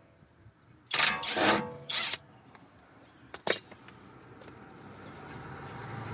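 Brief whirs of a cordless power tool and a sharp metal clink of tools on the stabilizer link nut, followed by a rushing noise that slowly grows louder.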